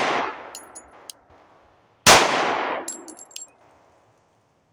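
A .45 ACP pistol shot from an HK45 Compact about two seconds in, its report ringing off for about a second and a half, following the dying tail of a shot fired just before. After each shot come light metallic pings of ejected brass casings.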